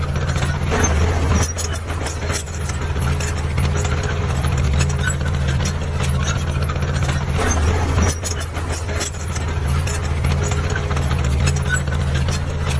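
Heavy diesel construction machinery engine running steadily, with scattered clanks and knocks over it.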